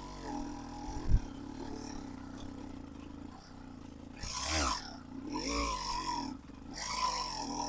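A motorized bicycle's small engine running, revved up and back down twice in the middle, with a short knock about a second in.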